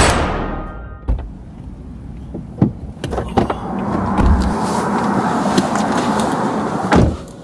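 A loud whoosh-hit at the start that fades over about a second, then a few clicks and knocks as a man climbs into a car through the open door, with a steady rush of outside noise. About seven seconds in the car door shuts with a thud and the noise drops.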